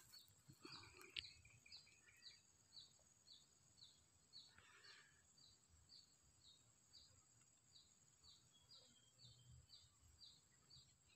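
Near-silent outdoor ambience: a faint, high chirp repeating evenly about three times a second over a steady faint high hiss.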